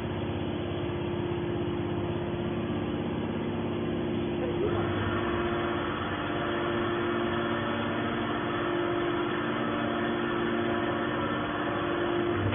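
Aluminum can baler running: a steady machine hum with a few constant low tones, joined about halfway through by a brighter, hissier layer.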